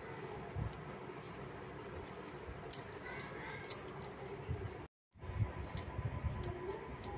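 Quiet handling sounds of bitter gourds being stuffed and tied with thread over a steel bowl, with scattered light clinks of glass bangles. The sound cuts out for a moment about five seconds in.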